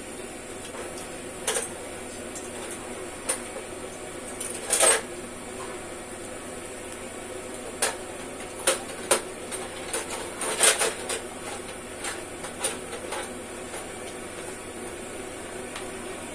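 Irregular sharp clicks and clinks, like hand tools and small metal parts being handled, set down and knocked together during work on a truck inner tube's valve base, over a steady hiss. The loudest knock comes about five seconds in, and there is a quick cluster near the middle.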